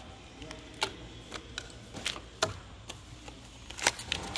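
Irregular sharp plastic clicks and light taps from a small white plastic wireless door-contact transmitter being handled and turned over in the hands, the loudest click near the end.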